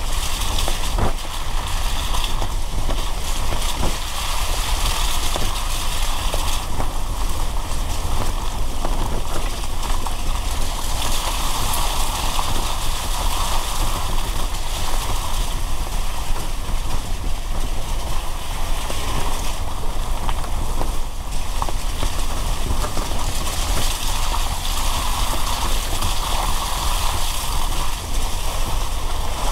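Car driving in the rain: a steady low rumble of engine and tyres on the wet road, under an even hiss of rain and spray.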